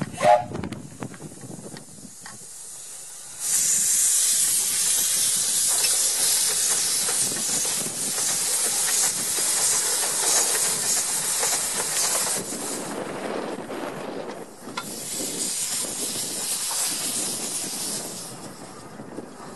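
Narrow-gauge steam locomotive 'Sea Lion' letting off a loud, steady hiss of steam from its open cylinder drain cocks as it moves. The hiss starts a few seconds in and fades away near the end. A brief loud tone sounds at the very start.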